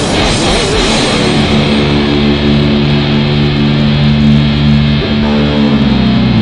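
Electric guitar improvising over a heavy metal backing track. A quick flurry of notes gives way about a second and a half in to a long held note that sustains for several seconds.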